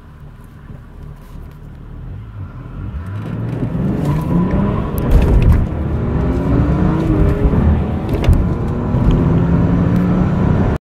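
BMW E46 straight-six engine running low, then accelerating hard from a standstill about three seconds in. The engine note climbs and grows louder in each gear and drops back at the gear changes, then cuts off suddenly near the end.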